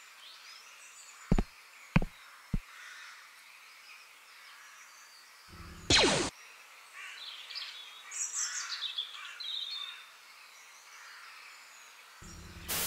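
Two sci-fi blaster shot sound effects, each a loud zap falling sharply in pitch, one about six seconds in and one near the end, over a faint forest ambience of birds chirping. Three short sharp knocks come at about one-and-a-half to two-and-a-half seconds in.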